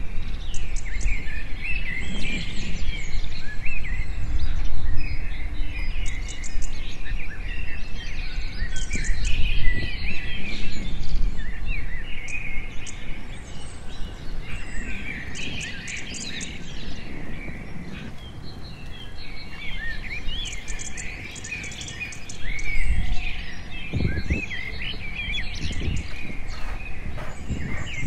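Many small birds chirping and calling without a break, with quick trills coming and going. A steady low rumble runs underneath, and a few dull thumps come near the end.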